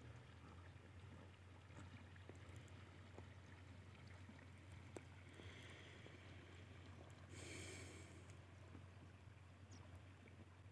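Near silence: faint field ambience with a steady low hum, a few faint ticks, and a brief soft hiss about seven seconds in.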